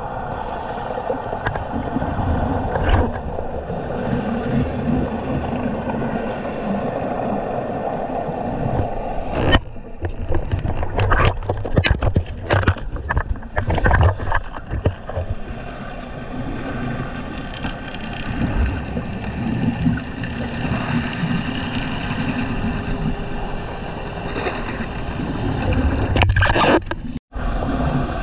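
Scuba diving heard underwater through a camera housing: a diver's exhaled bubbles gurgling and regulator breaths over a steady low rumble. A run of sharp crackles and knocks about ten to fifteen seconds in, and a momentary dropout near the end.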